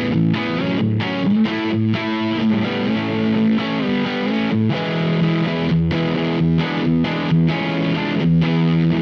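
Electric guitar played through a Mozztronics GD-1 Bone Breaker overdrive pedal, with overdriven chords changing over the first few seconds. From about five seconds in, a low note is picked over and over in a steady rhythm, about twice a second.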